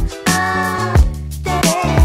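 Background music with a steady drum beat, about one strong hit a second, under held chords.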